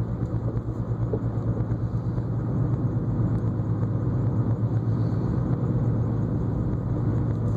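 Car running on the road, a steady low drone with rumble, a little louder from about two and a half seconds in.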